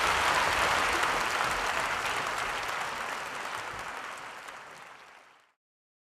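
Theatre audience applauding, a dense patter of many hands clapping, fading away steadily and cut to silence near the end.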